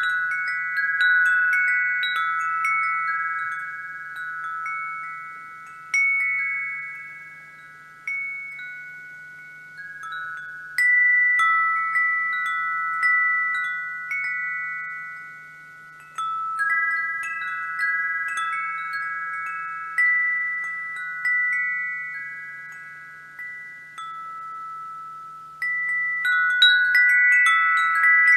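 Wind chimes ringing: several clear tones struck at uneven intervals, each ringing on and fading slowly, with the strikes growing busier near the end.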